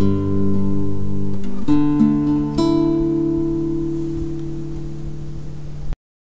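Background music on what sounds like acoustic guitar: a few plucked chords left to ring and slowly fade, cutting off abruptly near the end.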